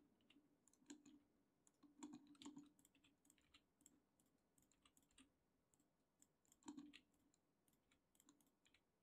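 Near silence with a few faint, scattered clicks of a computer mouse and keyboard.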